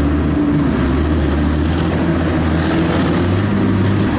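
PTS-M tracked amphibious transporter's diesel engine running steadily under way, a loud low drone with a slight shift in its note about three seconds in.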